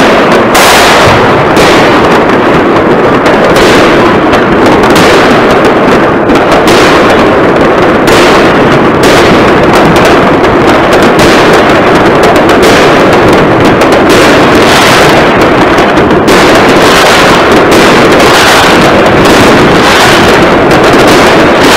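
Continuous cannonade of many fireworks and firecrackers going off at once across a town, with bangs and crackles overlapping and no pause, very loud throughout.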